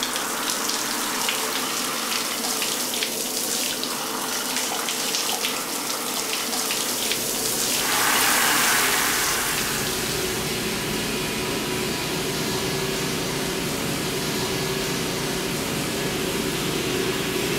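Shower spray running steadily and splashing on the bather and the tiled stall. It swells louder around eight seconds in, and a low rumble rises beneath it from about seven seconds on.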